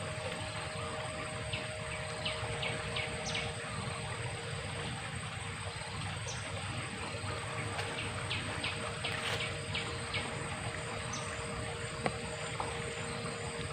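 Outdoor ambience of insects droning steadily, with runs of short, high bird chirps a few seconds in and again past the middle.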